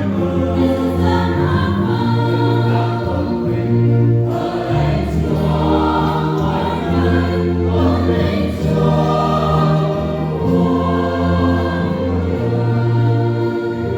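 Church choir singing a Vietnamese Easter hymn in harmony, with long held chords and sustained low bass notes.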